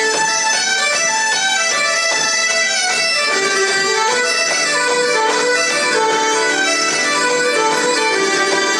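A traditional folk tune played live by a band of bagpipes, fiddle and keyboard, the pipes carrying the melody over a steady drone that comes in about halfway through.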